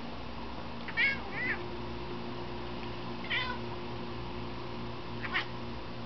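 Tabby cat's short, high chirping 'barks' aimed at a pigeon outside the window, the prey-directed calls a cat makes at a bird it cannot reach. Four brief calls: two close together about a second in, one a little past three seconds, and one near the end.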